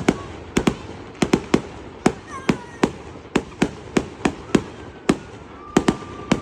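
Fireworks display: a rapid, irregular series of sharp bangs from aerial shells bursting, about two or three a second.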